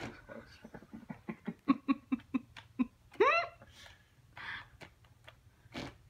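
A woman laughing in a quick run of short bursts, then a short high-pitched cry that rises and falls about three seconds in.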